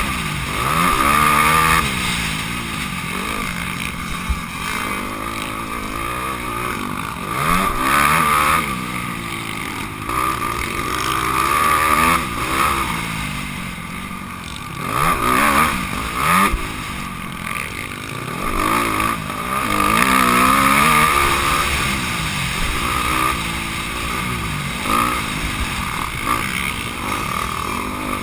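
Honda CRF250R's single-cylinder four-stroke engine, heard up close from a camera on the bike, revving up and dropping back over and over as the rider accelerates, shifts and rolls off around a motocross track.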